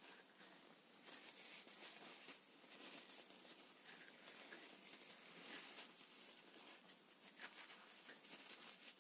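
Near silence: faint room hiss with a few soft, small clicks.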